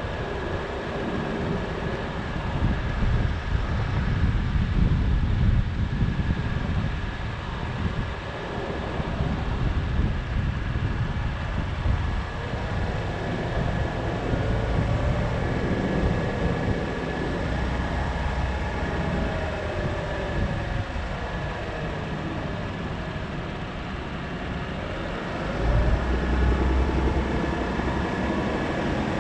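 A car's engine and road noise: a steady low rumble that grows louder near the end.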